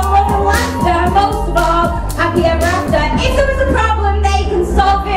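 Pop music with a steady drum beat, a bass line and a singing voice.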